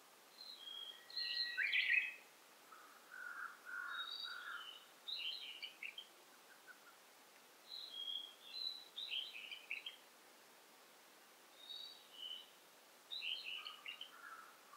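Songbirds singing in a forest: a high phrase of short notes repeats every few seconds, a lower warbled phrase comes in a few seconds in and again near the end, and the loudest call, about two seconds in, sweeps sharply upward.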